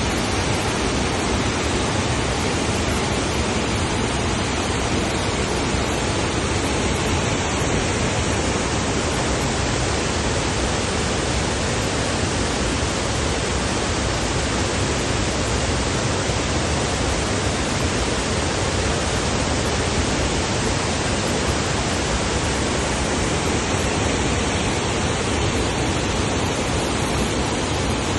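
Waterfall: falling water rushing steadily, a dense even roar with no change.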